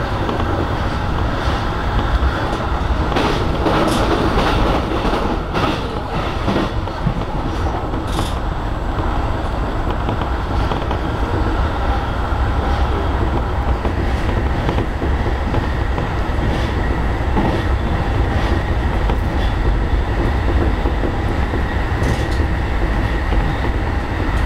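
E233-series electric train running at speed, heard from inside the leading car: a steady rumble of wheels on rail with scattered sharp clicks, as it crosses a steel truss bridge.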